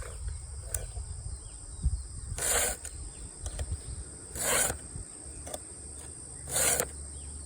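A file rasping across a chainsaw chain cutter tooth in three strokes about two seconds apart, against a steady high buzz of insects.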